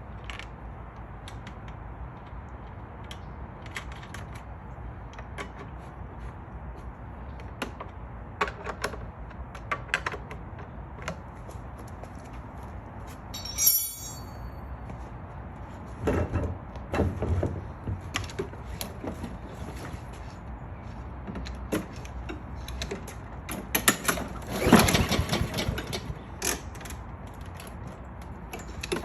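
Scattered clicks, knocks and light rattles of parts and tools being handled while working on a walk-behind lawn mower, with a sharp metallic clink about halfway through and louder bursts of clatter later on.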